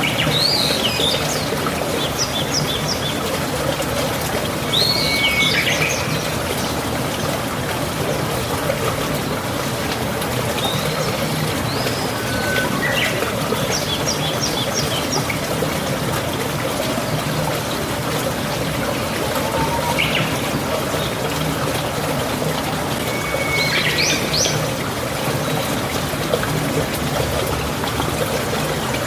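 Steady trickling, flowing water with birds calling over it every few seconds: short chirps, rising and falling whistles, and quick runs of high notes.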